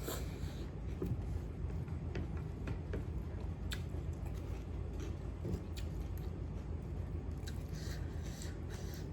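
Close-miked chewing while eating, with scattered small wet clicks and mouth noises over a steady low rumble.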